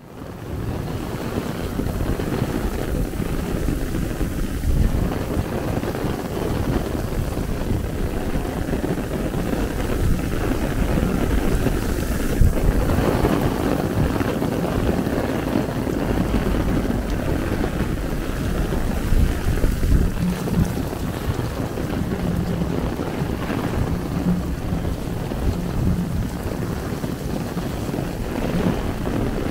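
Heavy rain pouring down, falling on an umbrella held overhead, with wind buffeting the microphone.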